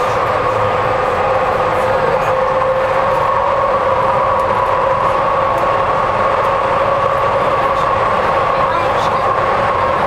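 Docklands Light Railway train running at speed, heard from inside the car: a steady rumble with a steady high whine.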